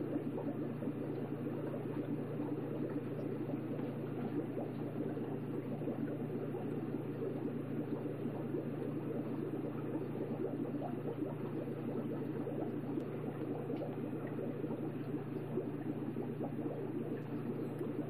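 Fish tank water bubbling steadily over a low steady hum.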